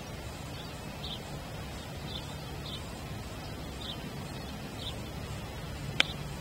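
Short, high bird chirps repeating over a low steady hum. About six seconds in comes one sharp click: a golf wedge striking the ball on a short pitch shot.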